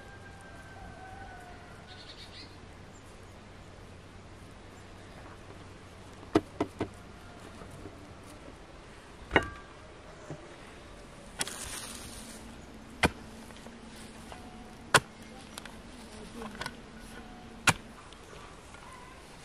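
Outdoor ambience with faint birdsong at first, then an insect buzzing steadily through the second half, broken by about ten sharp clicks and knocks, the loudest a little after the middle.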